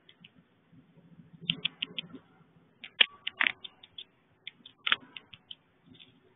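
A series of light, irregular clicks and taps, some in quick runs of three or four, the loudest about three seconds in and again near five seconds.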